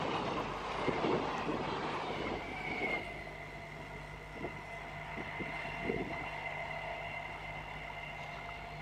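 Indian Railways electric multiple unit (EMU) passenger train passing at speed, its wheels clattering over the rails. About three seconds in, the sound changes to a quieter steady whine and hum as another EMU approaches head-on.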